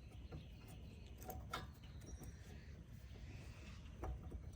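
A few faint, sharp clicks and light knocks from metal brake parts being handled, over a low background rumble.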